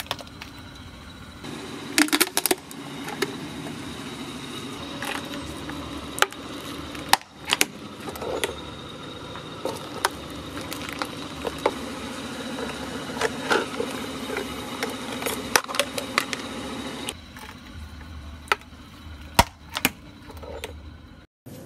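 Hard plastic toys cracking and snapping as a car tyre rolls over them on concrete: many irregular sharp cracks, a few much louder than the rest, over a low steady rumble.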